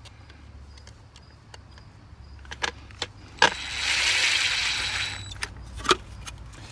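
Clicks and plastic-and-metal handling noise as a GFCI receptacle and its gasketed weatherproof cover are fitted back onto the outdoor electrical box, with a sharp click about three and a half seconds in and then a longer scraping hiss lasting about a second and a half.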